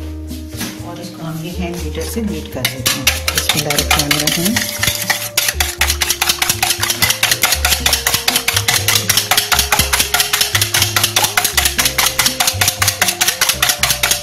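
Wire whisk beating two raw eggs in a ceramic bowl: rapid, even clicking strokes of the wires against the bowl, starting about three seconds in, over background music.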